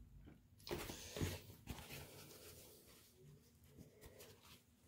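Mostly near silence, with a few faint soft rustles and light taps in the first two seconds as a paintbrush is cleaned off and put aside.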